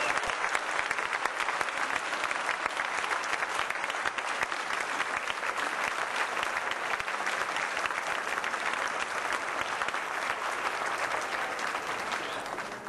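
A large crowd applauding, a dense steady clatter of many hands clapping that dies down near the end.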